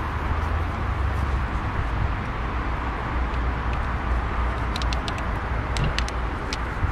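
Steady low outdoor rumble, with a few light clicks in the second half.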